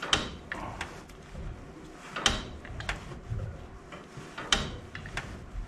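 Metal knocks and clicks from tools working threaded gas pipe fittings: a sharp ringing knock about every two seconds, with lighter clicks in between.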